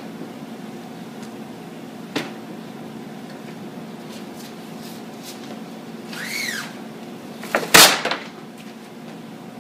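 Squeegee and handling noise on an adhesive vinyl wrap on a refrigerator door: a click about two seconds in, a brief rising-and-falling squeak around six seconds, then a loud crackling tear near the end as the vinyl sheet is peeled back off the door. A steady low hum runs underneath.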